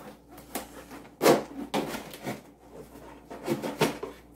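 Cardboard shipping box being opened by hand: a string of short scraping and ripping noises as the packing tape is pulled at and the cardboard rubs, the loudest about a second in.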